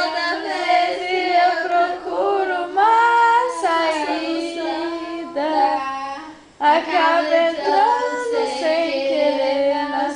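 A high voice singing a melody with held and gliding notes, unaccompanied, with a brief pause about six and a half seconds in.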